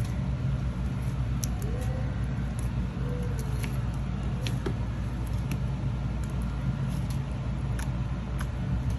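Homemade slime pressed and kneaded by hand, giving scattered small clicks and pops, over a steady low rumble.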